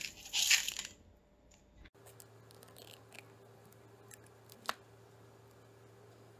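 Rice grains poured into a plastic mixing bowl, a rushing hiss in two pours over the first second. After that, a faint steady hum with light handling clicks and one sharp tap, as tomato paste is pushed out of a small can into the bowl.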